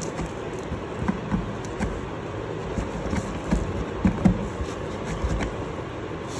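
Cardboard box scratching and rustling as a finger pokes through a hole and kittens paw at the rim, with scattered light clicks and soft knocks over a steady rumbling background.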